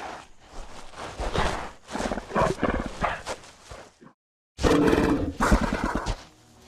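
Sound-designed Majungasaurus vocalisations: a series of growls and roars, broken by a short silence about four seconds in, after which comes a louder roar that trails off.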